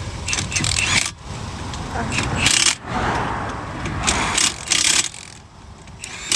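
Small metallic clinks of lug bolts being started by hand and turned into the wheel hub, with highway traffic rushing past.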